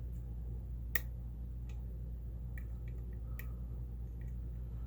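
Small sharp clicks of a lock pick working the pin stack of a challenge lock with serrated pin chambers, while a pin is lifted to try to set it. One crisp click about a second in is the loudest, with several fainter ticks after it, over a low steady hum.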